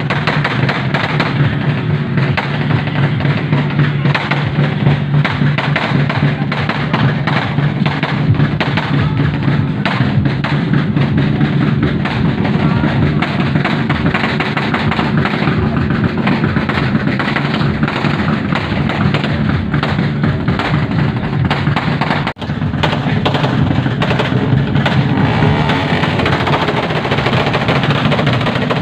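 Loud music with a drum beat and a heavy bass line, with voices mixed in; it drops out for an instant about three-quarters of the way through.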